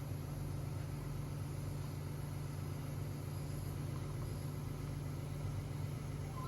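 Electric suction machine's pump motor running with a steady low hum while secretions are suctioned from a patient's airway.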